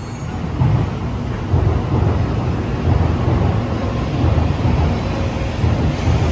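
N700-series Shinkansen train running in along the platform: a loud, low rumble with a rush of air that rises about half a second in and then holds as the carriages pass.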